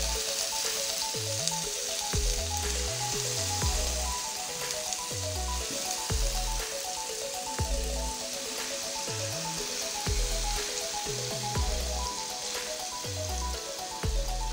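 Marinated paneer cubes sizzling as they shallow-fry in oil and butter in a pan, with background music playing over the frying.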